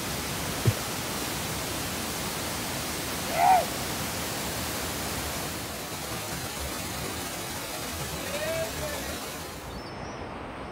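Steady rushing of a flooded waterfall and fast-running river. A voice calls out loudly once about three and a half seconds in, and more faintly near 8.5 s. Near the end the rushing drops away to a quieter scene with faint bird chirps.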